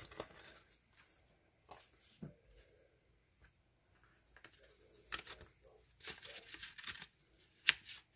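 Paper and card rustling as a mailed envelope is handled and opened: a few light taps at first, then bursts of rustling from about halfway through and a sharp tap near the end.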